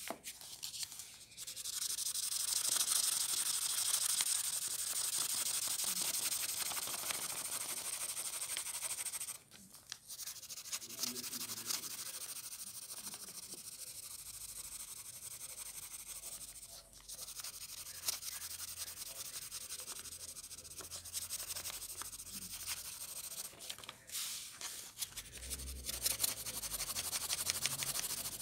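Pencil shading on paper: steady scratchy rubbing strokes, with brief pauses about a third and two thirds of the way through.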